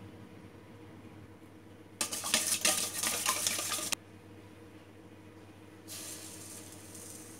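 Wire whisk beating eggs in a stainless steel bowl, a rapid clatter of the wires against the metal for about two seconds that cuts off abruptly. A couple of seconds later, granulated sugar pours into the bowl with a soft hiss.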